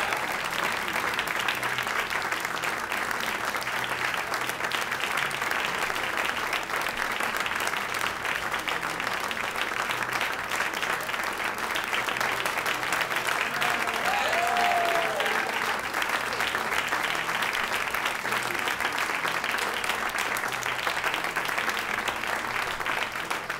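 Theatre audience applauding, a steady dense clapping that carries on without a break.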